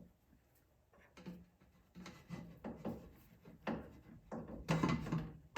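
Rubber intake coupler being worked onto a cold air intake tube: a series of short, irregular rubbing and creaking noises, the busiest near the end.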